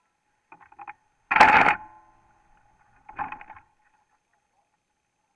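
Short bouts of clattering and knocking, three in all, the loudest about a second and a half in: the stationary kart and its onboard camera being bumped and handled, engine off.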